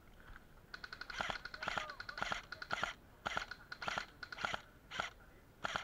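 Footsteps crunching through dry leaf litter on a woodland floor, about two steps a second, with a faint steady high tone underneath.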